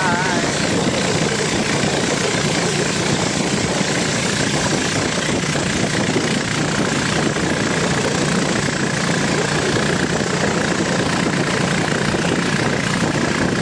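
Boat engine running steadily as the boat travels along the river, a constant loud drone mixed with rushing noise.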